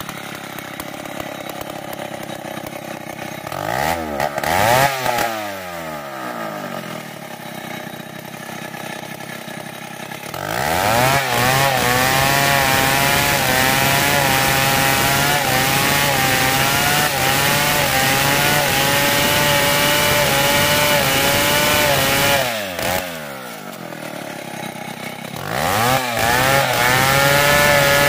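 STIHL chainsaw ripping a merbau hardwood log lengthwise. It runs low at first with a brief rev-and-fall about four seconds in, goes to full throttle in the cut at about ten seconds, drops back briefly a little after twenty-two seconds, then returns to full throttle near the end.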